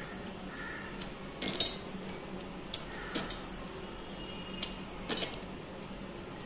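Oreo biscuit halves dropped by hand into a stainless steel mixer-grinder jar and shifted in a glass bowl: scattered light clicks and taps, several over a few seconds.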